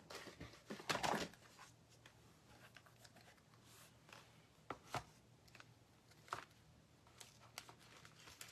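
Craft supplies being handled on a work desk: a brief rustle about a second in, then a few light, scattered clicks and taps.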